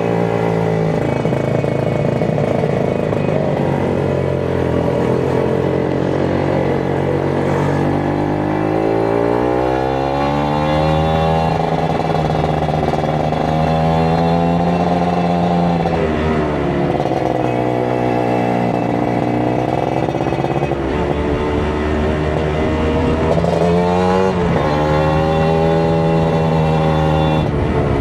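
Kawasaki Ninja 150 RR's two-stroke single-cylinder engine under way, pitch climbing and falling with the throttle and gear changes: a long rise in revs around ten seconds in, a drop about sixteen seconds in, and a quick rise and fall near the end.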